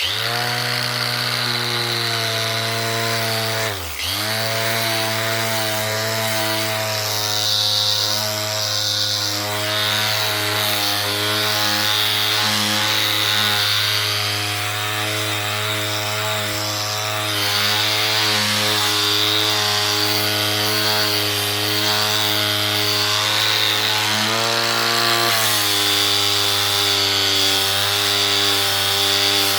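Electric angle grinder fitted with a sanding disc, switched on and sanding wooden fence pickets: a steady motor whine whose pitch and level dip sharply once about four seconds in, as the disc is loaded against the wood.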